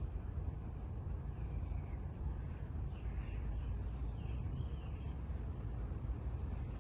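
A steady high-pitched insect drone with a few faint bird chirps, over a low rumble of wind or handling on the microphone.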